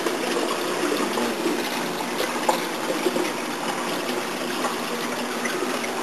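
Saltwater reef aquarium's circulating water trickling and splashing steadily, with a low hum underneath.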